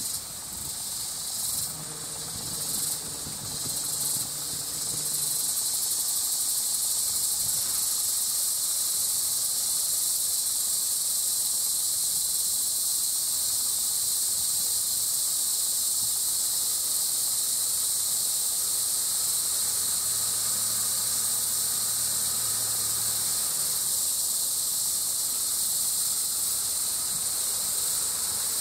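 Steady, high-pitched drone of insects in the vegetation around a tropical limestone cliff, swelling about five seconds in and then holding level.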